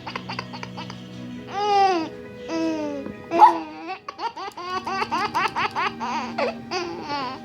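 Baby laughing: a couple of long, high squealing laughs followed by a quick run of short giggles, over steady background music.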